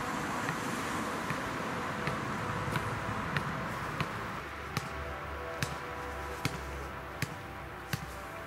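A basketball being dribbled on tarmac, a sharp bounce roughly every three-quarters of a second, more distinct in the second half, over a steady outdoor hiss.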